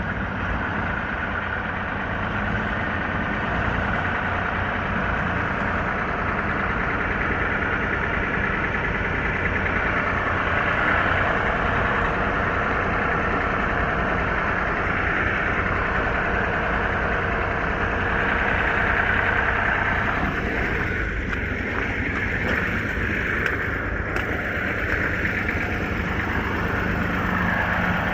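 A truck engine running steadily at idle.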